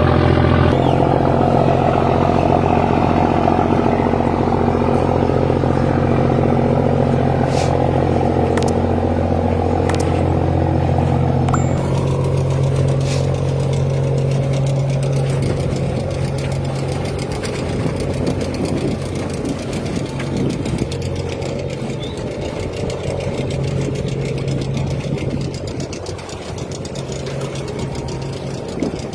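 Large river ferry's engines running with a steady, low drone. About twelve seconds in, the drone turns rougher and gradually a little quieter, with a few faint clicks earlier on.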